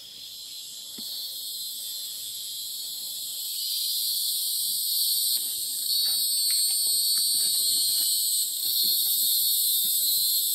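Chorus of forest insects: a steady high-pitched shrill in several layers, growing louder about three and a half seconds in and again about six seconds in.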